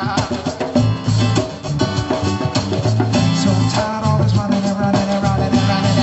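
Band music: a steady bass line and drums with singing over it.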